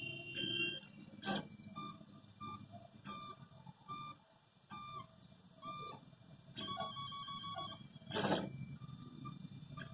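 Home-made 3D printer's stepper motors whining in short pitched moves as the print head travels, a new tone every half-second or so, over a low hum. A sharp click about a second in and a louder, noisier burst about eight seconds in.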